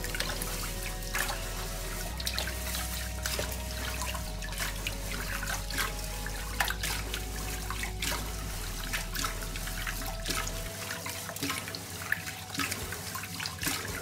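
Hands rubbing and swishing rice in water in a rice cooker's inner pot, with splashing and many small clicks of grains against each other and the pot: the rice is being washed to rinse off its starch.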